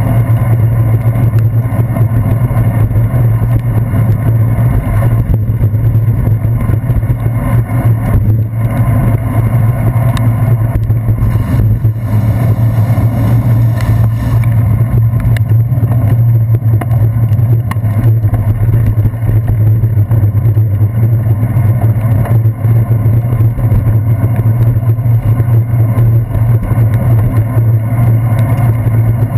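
Steady, loud rumble of wind and road vibration picked up by a handlebar-mounted GoPro Hero 2 in its waterproof housing as the bicycle rolls over wet streets, with a few faint clicks.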